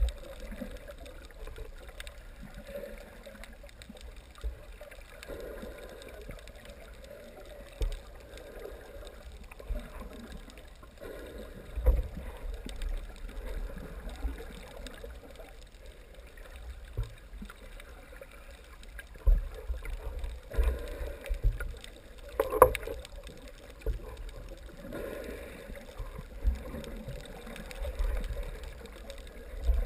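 Muffled underwater sound of water moving around swimming snorkellers, with irregular low thumps and knocks. The loudest knock comes a little past the middle.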